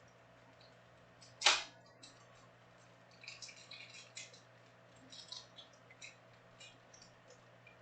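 Trading-card packs and cards being handled: one sharp, loud crackle of wrapper about a second and a half in, then light scattered crinkling and clicking of foil wrappers and cards.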